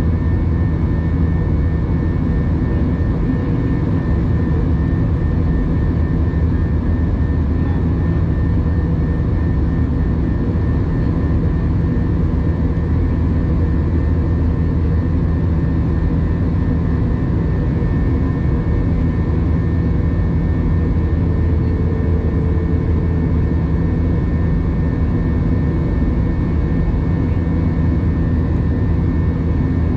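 Jet airliner in flight, heard from inside the cabin beside the wing: a steady, unbroken low rumble of engine and airflow noise with a few faint steady hums over it.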